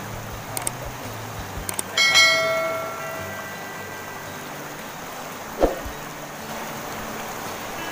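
A single bright bell-like chime about two seconds in, fading over about a second and a half and preceded by a couple of faint clicks, in the manner of a subscribe-button notification sound effect. It sits over the steady rush of a shallow, fast-flowing river.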